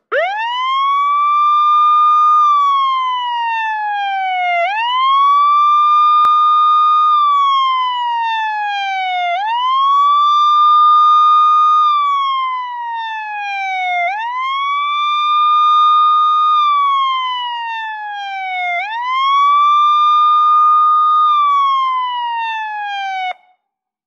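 American police siren sounding its wail: the tone sweeps up quickly, holds high for about two seconds, then slides slowly down, five cycles in a row about every four to five seconds, and cuts off suddenly near the end.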